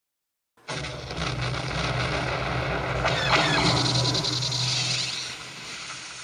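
TIE fighter engine sound effect: a roaring fly-by that starts suddenly, swells to its loudest about halfway through with a falling whine, then fades away.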